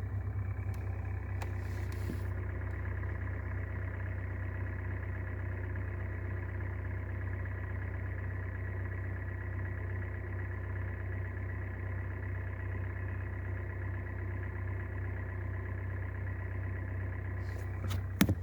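Hyundai Solaris 1.4 four-cylinder petrol engine idling steadily from cold, heard at the open engine bay, with the grinding the owner likens to bearings; its cause is not yet found, and the timing chain is under suspicion. A few sharp clicks come just before the end.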